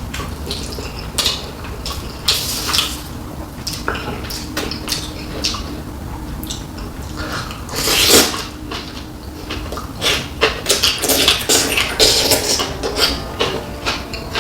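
Eating at a table: utensils clicking and scraping against dishes, with chewing of rice and spicy kimchi, in many short irregular clicks. A louder breathy rush comes about eight seconds in.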